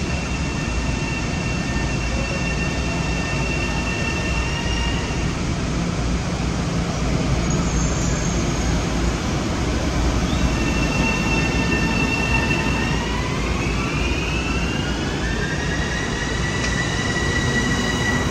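Long Island Rail Road electric multiple-unit train running over a steady low rumble, with a high electric whine of steady tones. About two-thirds of the way through, several tones rise together in pitch and then level off, as the train's traction motors speed up.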